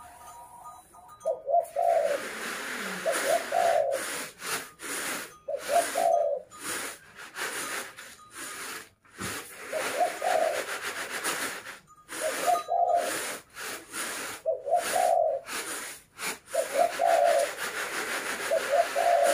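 A dove cooing over and over, short low calls in little groups every second or two. Under it is the rustling hiss of unhusked rice being tossed in bamboo winnowing trays, which breaks off and resumes with the strokes.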